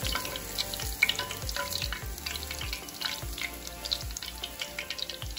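Hot frying oil in a cast-iron skillet sizzling and crackling, with many small irregular pops, as a just-fried basa fillet is held over it to drain.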